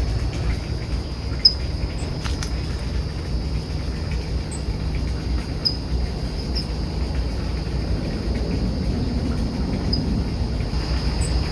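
Songbirds giving scattered short, high chirps a few seconds apart at dusk, over a faint steady high trill and a low steady background rumble.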